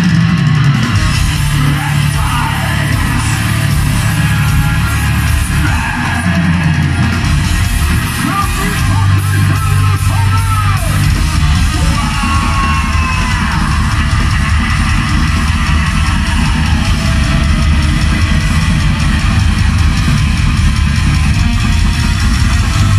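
A black metal band playing live and loud: distorted electric guitars, bass and fast drumming, with yelled vocals over it at times.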